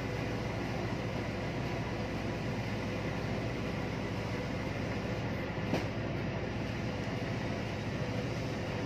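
Steady machinery drone with a few constant hum tones, and a single short click a little under six seconds in.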